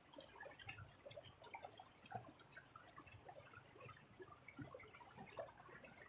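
Faint trickling and dripping of a small stream, with tiny irregular plinks and a low murmur underneath.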